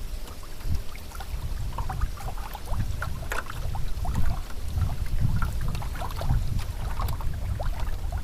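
Wind buffeting the microphone in uneven low rumbles, with small splashes and ticks of water lapping against a small boat.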